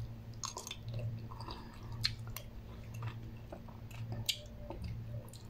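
A person chewing a mouthful of instant noodles, with scattered small wet clicks and smacks from the mouth over a low steady hum.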